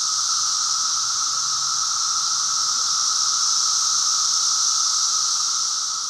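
Chorus of Magicicada septendecula periodical cicadas, a sound likened to the flying saucers of 1950s science-fiction films. It is a steady, high-pitched buzzing hiss with a lower whine beneath, holding its pitch and fading near the end.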